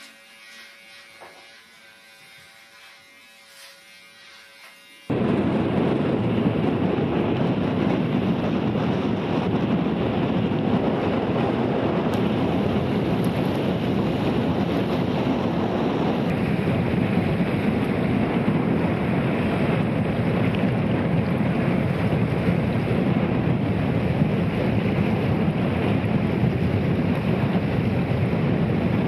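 Strong wind blowing across the camera microphone, a loud steady rushing noise that starts suddenly about five seconds in; before that, only a faint electrical hum.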